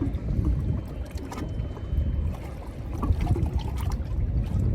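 Water lapping and trickling against a small boat's hull, over a steady low rumble with scattered small knocks.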